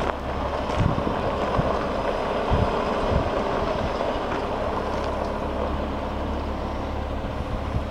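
2016 Peterbilt 389 truck tractor's diesel engine running steadily as the truck drives across a gravel yard, with a few scattered clicks over the rumble.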